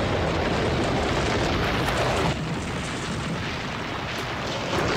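Loud, rumbling crash noise of a train smashing into a car and shoving the wreck along the rails. It eases about two seconds in and swells again near the end.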